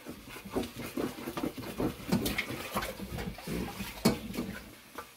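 Wooden spatula stirring and scraping a thick mass of biko (sweet glutinous rice) in a large metal wok: irregular scrapes and soft knocks.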